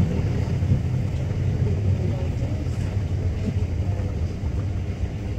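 Steady low rumble of a twin-engine widebody airliner's jet engines as it climbs away after takeoff, easing slightly toward the end.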